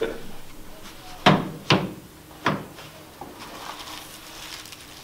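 Three sharp knocks in quick succession, the last about a second after the first two.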